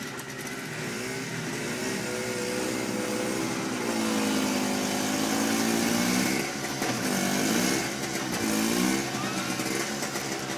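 An engine running, its pitch rising and falling again and again in long swells, with short drops in level about two-thirds of the way in and near the end.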